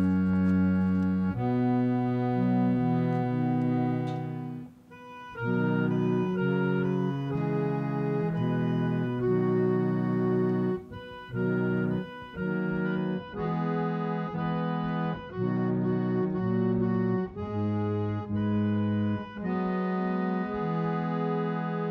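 Organ music: slow held chords, each sustained for a second or two before the next, with a short break about five seconds in.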